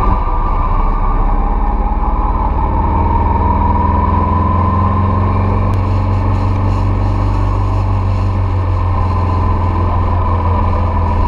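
Motorcycle running steadily at road speed on a climbing mountain road, its engine note drifting slightly up and down in pitch.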